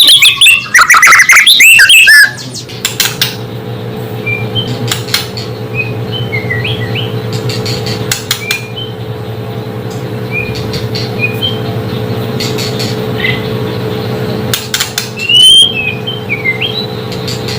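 White-rumped shama (murai batu) song: loud, rapid whistled phrases for the first two seconds and again about 15 seconds in, used as a lure call to provoke rival shamas. In between, only faint short chirps over a steady low hum.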